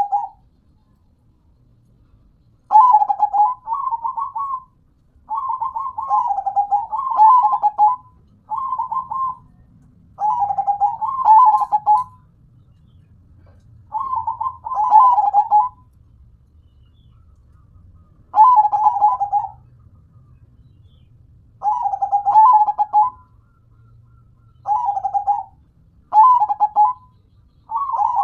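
Zebra dove (perkutut) singing: about ten short, bubbling coo phrases, each one to two seconds long, with irregular pauses between them.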